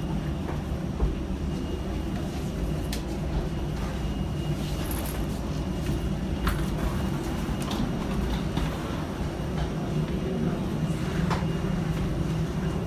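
Steady low mechanical rumble of a boarding area at an airport gate, with a few light clicks and knocks, one sharper about a second in.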